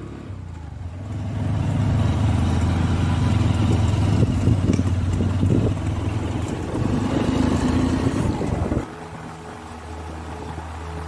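Motorcycle engine running at steady riding speed, with road and wind noise, building up over the first couple of seconds. About nine seconds in, the engine sound cuts off and soft music takes over.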